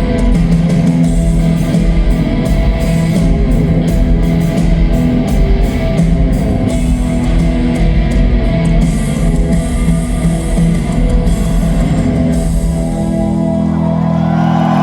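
A rock band playing live through a concert PA, with electric guitars, bass and drum kit. About thirteen seconds in the drumming stops and a held chord rings on.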